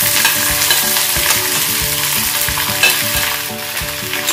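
Pieces of cut okra dropping into hot oil in a cast-iron kadai and sizzling steadily as they fry, with a few small clicks.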